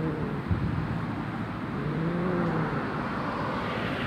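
A street cat growling: the end of one low growl at the start, then one drawn-out growl that rises and falls in pitch around the middle, over a steady background rumble.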